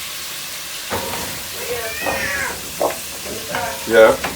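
A cat meowing twice, a long call that rises and falls and then a shorter one, over the steady sizzle of food frying in a pot.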